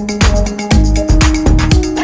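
Background dance music with a steady beat, about two bass-drum kicks a second, under held synth notes.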